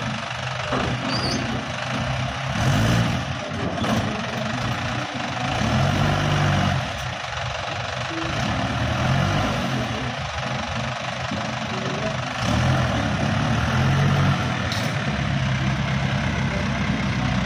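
Isuzu 4JA1 four-cylinder diesel of a six-wheel E-taen farm dump truck running and revving up several times as the truck is worked and driven.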